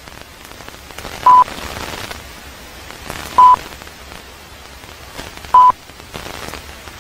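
Countdown-leader beeps: three short, loud, high single-tone beeps about two seconds apart, one for each number counted down, over a steady crackly hiss like old film.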